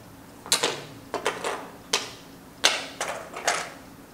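Go stones being set one after another onto a large upright demonstration board: a series of sharp clicks, about eight in four seconds, unevenly spaced.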